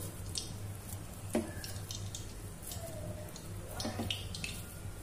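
Soft wet squishing and small sticky clicks of oiled hands pressing and sealing mashed potato-and-bread dough around a cheese ball, with one sharper click about a second and a half in, over a low steady hum.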